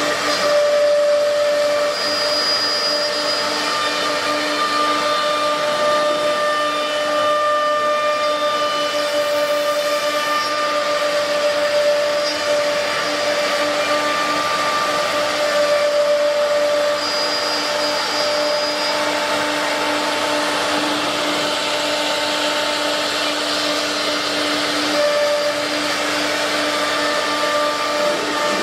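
CNC router spindle cutting through a particleboard sheet: a steady whine over a rushing, hissing cutting noise, with some of the whine's tones swelling and fading every few seconds as the cutter moves along the board.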